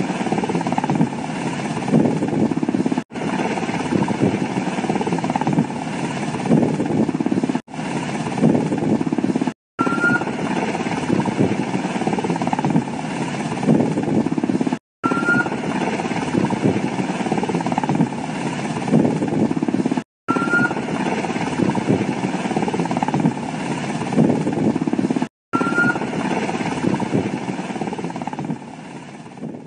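UH-60 Black Hawk-type helicopter running close by, its rotor and turbine making a steady, loud rushing noise. The sound cuts out briefly every few seconds, and a short rising chirp comes after several of the breaks.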